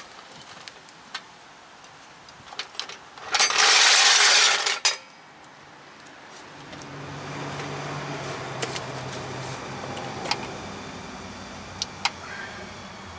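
Metal tools clinking and clicking, with one loud hiss lasting about a second and a half. From about halfway, a low steady vehicle engine hum builds underneath.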